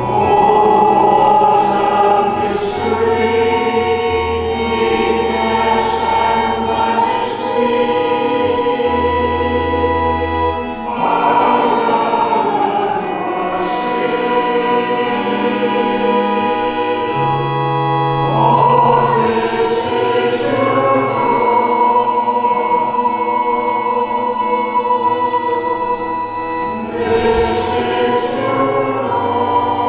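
Church congregation singing a hymn to organ accompaniment, in slow held notes.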